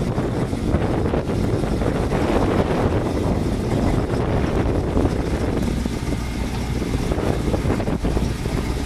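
Rock crawler's engine running under load as it crawls up over a rock ledge, a steady low rumble.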